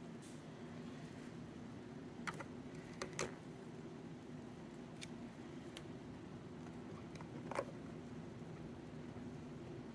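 A handful of light clicks and taps from hands handling an EPP foam model airplane during a glue repair, over a steady low hum; the sharpest click comes about three-quarters of the way through.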